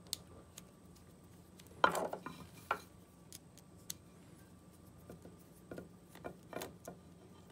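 A small screwdriver backing out the tiny side screws of a 3D-printed ligature: scattered light clicks and taps, the sharpest about two seconds in and a short run of them near the end.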